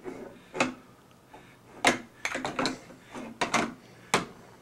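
A series of sharp knocks and clatters, about six, from hard objects being handled and bumped together, with a quick run of taps in the middle.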